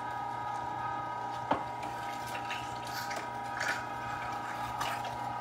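1 HP Carnivore electric meat grinder running steadily while grinding raw meat: a constant motor hum with a steady higher whine. There is one sharp knock about one and a half seconds in, and a few fainter knocks later.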